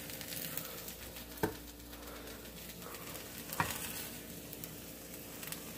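Apple slices frying in butter and sugar in a metal pan, a steady crackling sizzle, with two light knocks about a second and a half and three and a half seconds in.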